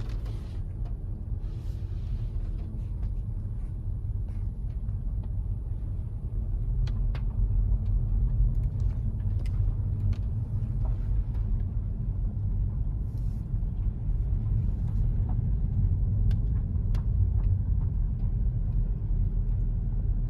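Car engine and road noise rumbling steadily as the car drives off, heard from inside, growing somewhat louder after several seconds as it picks up speed, with a few faint clicks and ticks.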